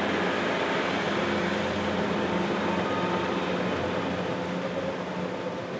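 Four-wheel-drive tractor engine running steadily under load while stomping rice straw on cage wheels, with a steady wash of water and mud being churned; the sound eases a little near the end.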